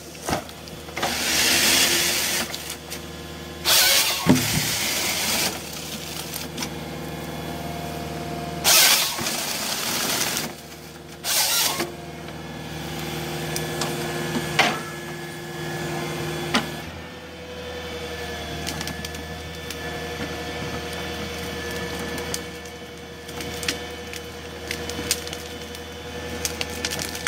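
Tracked harvester with a Nisula harvester head at work: its engine and hydraulics run steadily, broken in the first twelve seconds by several loud rushing bursts as the head saws and delimbs small trees. Later the engine holds a steadier tone, with scattered cracks of wood and branches.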